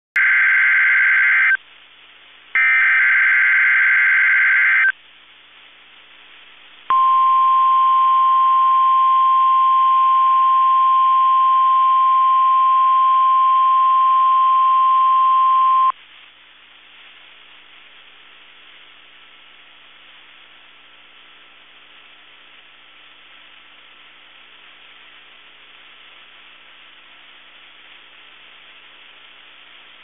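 NOAA Weather Radio Required Weekly Test: two bursts of warbling SAME digital header tones, then after a short pause a single steady 1050 Hz warning alarm tone held for about nine seconds. It cuts off abruptly, leaving faint radio hiss.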